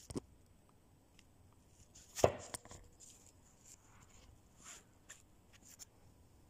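A few sharp knocks and clicks, the loudest about two seconds in, with fainter clicks later: handling noise as the phone filming is moved and repositioned.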